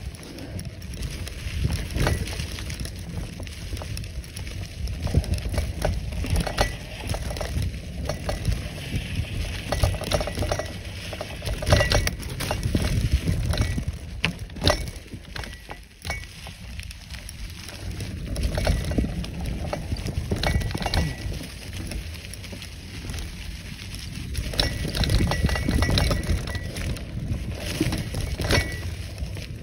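Bicycle ridden over a bumpy dirt trail covered in dry leaves: the bike rattles and clinks over the bumps and the tyres crunch through leaves, over a low rumble of wind on the microphone.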